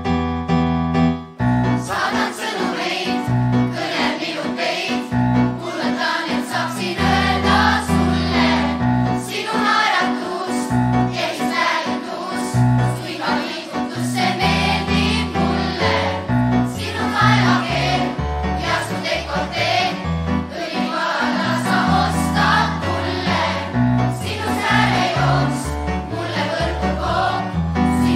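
Choir of children and adults singing in unison over a pop backing track with a steady bass beat. A keyboard passage gives way to the voices about a second and a half in.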